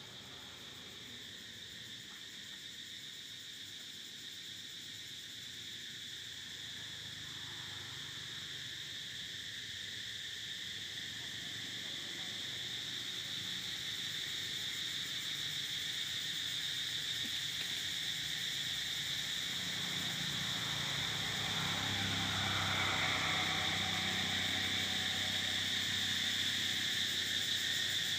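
A steady, high-pitched insect chorus drones without a break and grows slowly louder. A low hum joins in about two-thirds of the way through.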